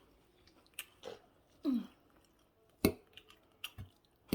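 Someone chewing a mouthful of fried plantain and egg close to the microphone, with a few sharp clicks and a short vocal sound about halfway through.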